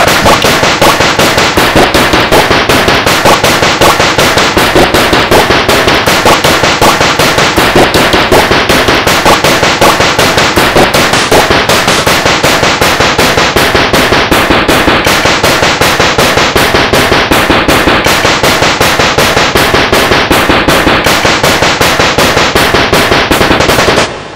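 Loud, distorted YTPMV remix: chopped video samples stuttered in a fast, even machine-gun-like rhythm of about three to four hits a second. It cuts off near the end and fades away.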